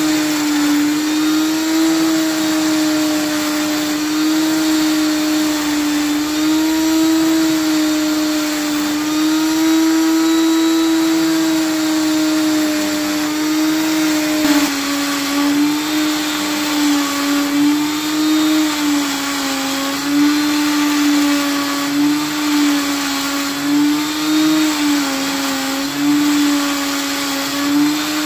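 Electric grinder spindle with a mounted grinding stone running with a steady hum while a steel CV joint part is ground against it, with a hiss of abrasion. In the second half the hum dips in pitch again and again and the loudness pulses as the part is pressed on harder.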